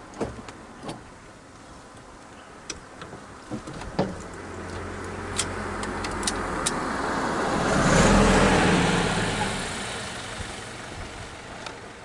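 A motor vehicle approaching and passing: engine and road noise swell to a peak about eight seconds in, then fade away. Several sharp clicks sound in the first few seconds.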